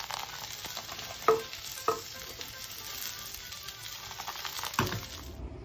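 Chicken seekh kababs sizzling in hot butter on a flat griddle tray as they are basted, a steady hissing fry with two sharp clicks about a second and two seconds in. The sizzle cuts off near the end.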